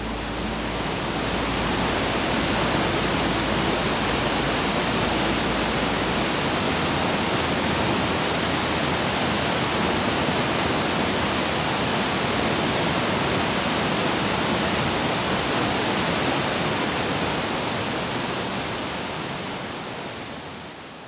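Steady rushing of a large waterfall, even and unbroken, swelling in over the first couple of seconds and fading out near the end.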